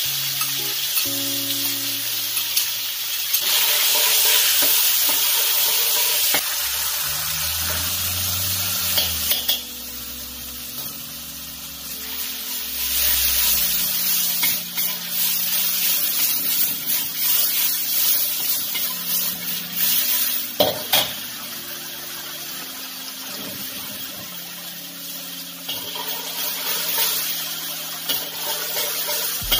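Salted fermented soybean paste sizzling in a little hot oil in a steel wok, stirred with a metal spatula. The sizzle is loudest in the first third, and a couple of sharp knocks of the spatula on the pan come about two-thirds of the way in.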